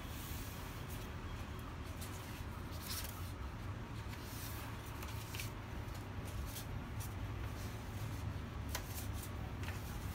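Pages of a large hardcover book being turned by hand: several short paper swishes and rustles, over a steady low hum.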